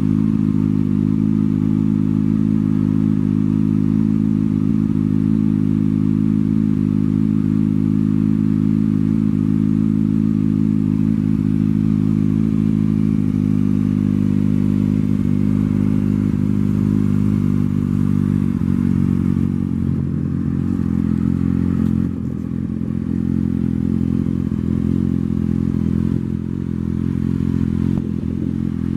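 2019 Kawasaki ZX-6R 636's inline-four engine idling steadily through an M4 aftermarket exhaust.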